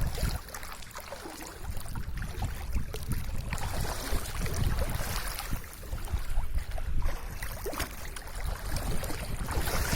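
Wind gusting over the microphone: an uneven rumbling rush that rises and falls.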